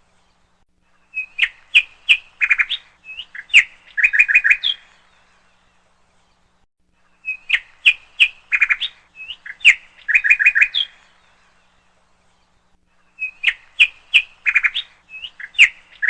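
Songbird singing: the same phrase of quick, high chirps and short trills, about three and a half seconds long, comes three times, identical each time, with silent pauses of about two and a half seconds between.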